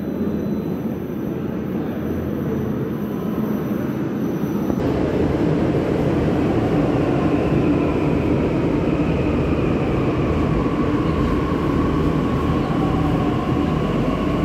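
Delhi Metro train pulling into an underground station: a rumble on the rails that grows louder about five seconds in as the cars run alongside the platform, with a whine that drifts down in pitch as the train slows to a stop.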